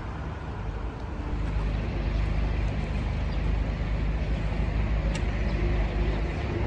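Road traffic noise: a steady low rumble of vehicle engines with a faint engine hum, growing a little louder about a second and a half in.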